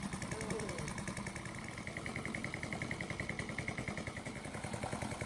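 Small single-cylinder four-stroke motorcycle engine of a Honda Astrea Grand idling steadily, with a fast, even pulse.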